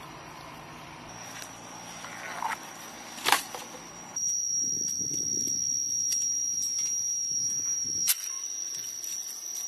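A steady, high-pitched insect drone starts suddenly about four seconds in and holds, with a few sharp clicks, the loudest about three seconds in.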